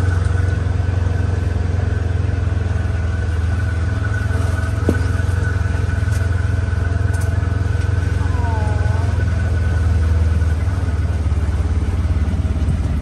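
Engine of a side-by-side utility vehicle running steadily at low speed: a deep, even drone with a faint steady whine above it.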